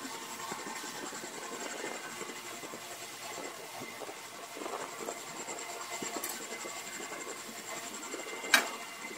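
Hands working on an unplugged Rockwell Model 14 band saw: irregular scraping and rubbing of metal parts as it is adjusted, with one sharp click or knock near the end.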